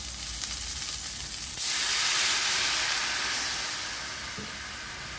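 Half a cup of water poured into a hot stainless-steel frying pan holding cherry tomatoes, deglazing the browned chicken drippings. About a second and a half in it hits the pan with a sudden loud hiss and sizzle of steam, which slowly dies away; before that the tomatoes sizzle quietly.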